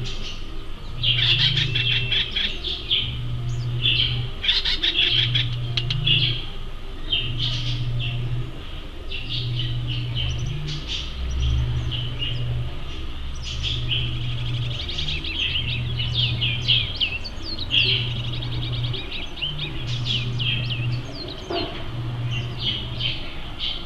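Acorn woodpecker calling: bursts of rapidly repeated notes, given again and again with short gaps. Underneath, a low hum pulses on and off about every second and a half.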